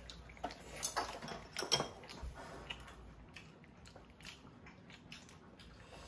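Close eating sounds at a table: chewing and mouth smacks, with a few sharp clicks in the first two seconds and faint ticks after.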